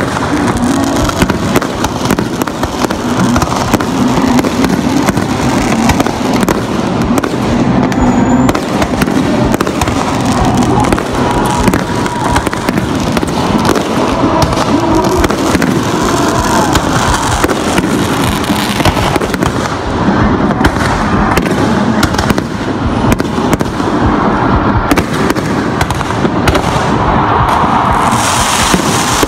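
Fireworks display: an unbroken barrage of bangs and crackling from bursting aerial shells.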